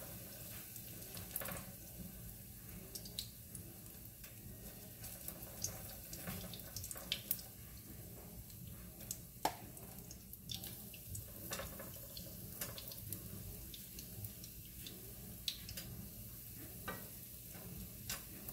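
Hot oil sizzling in a frying pan as spoonfuls of vegetable batter are dropped in, with a steady hiss and scattered sharp crackles and pops.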